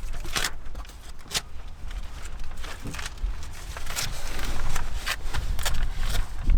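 Plastic adhesive floor-protection film crinkling and rustling in irregular bursts as it is laid and pressed onto the carpet, with handling thumps underneath.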